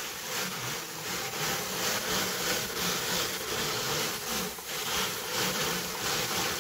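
Ashford drum carder running, its large wire-toothed carding drum spinning as wool is fed through: a steady whirring with gently pulsing loudness.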